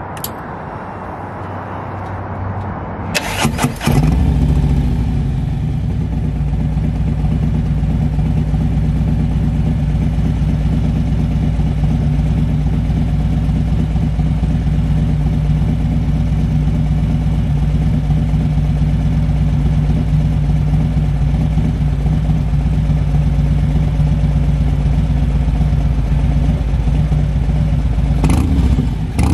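2021 Harley-Davidson Road Glide Special's Milwaukee-Eight 114 V-twin, already warm, cranks on the starter about three seconds in. It catches and settles into a steady, loud idle through its D&D aftermarket exhaust, which the owner calls absolutely menacing.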